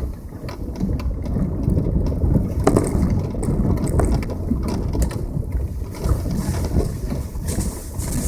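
Passenger car driving on a rough road: a steady low rumble with frequent clicks and knocks.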